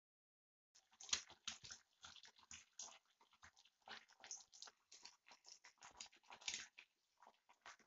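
Eggs frying in hot oil in a nonstick pan: irregular crackling and popping of spitting oil, starting about a second in.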